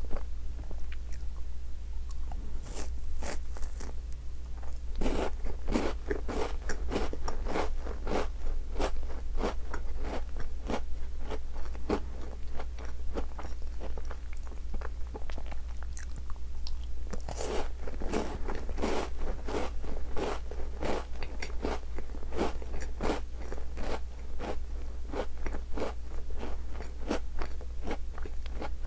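Close-up biting and crunching of Tim Tam chocolate-coated biscuits. There are two clusters of crisp bites, a few seconds in and again past the middle, each followed by a run of crunching while chewing.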